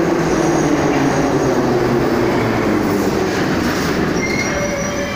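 Ezh3 metro train arriving at the platform and braking to a stop: wheels rumbling on the rails under a falling hum, then high wheel and brake squeals in the last second or two.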